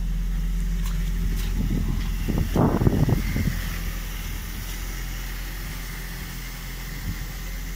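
Ford Fiesta ST's 2.0-litre four-cylinder engine idling steadily. About two and a half seconds in there is a brief loud thump and rustle of someone climbing out of the car, and the idle is a little quieter after it.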